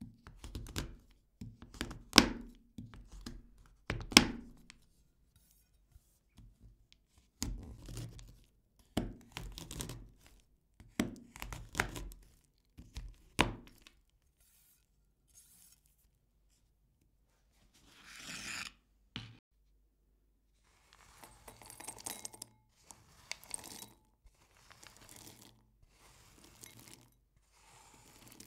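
A large kitchen knife chopping a dark chocolate bar on a wooden cutting board: sharp knocks of the blade on the board at uneven intervals through the first half. After a pause, scraping and rattling as the chopped chocolate pieces are slid off the board and drop into a glass bowl.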